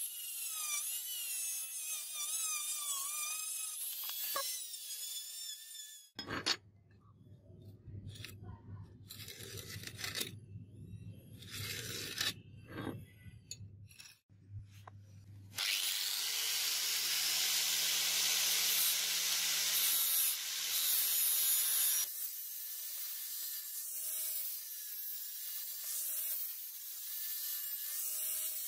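Electric drill spinning a sanding drum against the rusty steel blade of a butcher's chopper, its whine wavering as it bites. Later comes a loud, even hissing stretch, and then the steel blade is rubbed back and forth by hand on a wooden board with a steady scraping rub.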